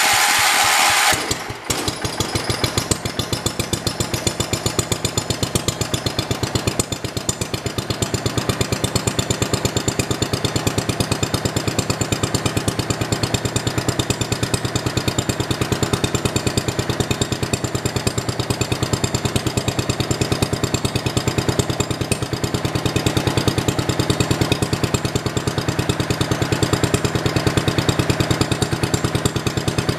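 1978 John Deere 312 garden tractor's engine running with the transmission in neutral. It runs loudest for the first second or so, then settles into a steady run with a fast, even pulse.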